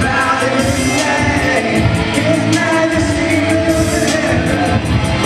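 Live band playing an upbeat Christian hip-hop worship song: vocals over a steady drum beat with bass and keys.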